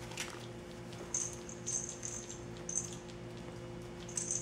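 Young puppies giving short, very high-pitched squeaks several times over a steady low hum.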